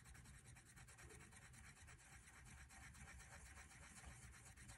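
Colourless blender pencil rubbed rapidly back and forth on paper, burnishing layered coloured pencil: a faint, fast scratching.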